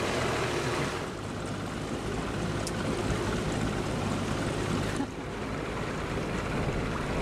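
Boat motor running steadily under way, with water and wind noise over it. The sound changes abruptly about a second in and again about five seconds in.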